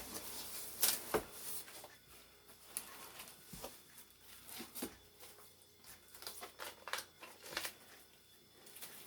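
Cardboard and plastic packaging being handled inside an opened box: scattered crinkles, taps and scrapes, loudest about a second in.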